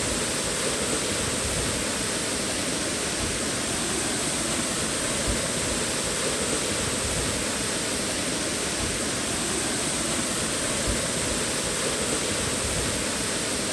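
Waterfall rushing: a steady, even noise of falling water with no breaks.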